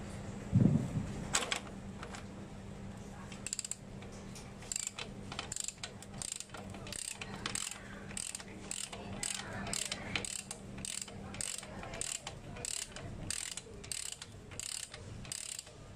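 Ratchet wrench clicking as it turns a splined bottom-bracket tool, unscrewing a bicycle's square-taper cartridge bottom bracket from the frame. From a few seconds in the clicks come steadily, about two a second; a single thump near the start is the loudest sound.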